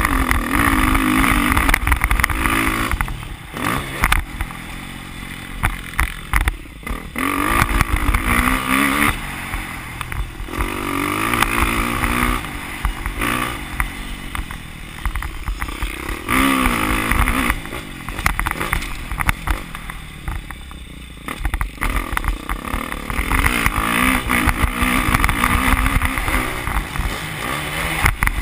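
Motocross bike engine revving hard and easing off in repeated cycles, climbing in pitch on each pull and dropping away every few seconds as the rider goes through corners and down straights. A constant low rumble of wind buffets the onboard microphone.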